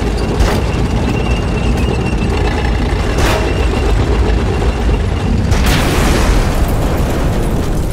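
War-film battle soundtrack: a tank's constant deep rumble, with sharp cracks of gunfire about half a second in, past three seconds, and shortly before six seconds. The last crack opens into an explosion.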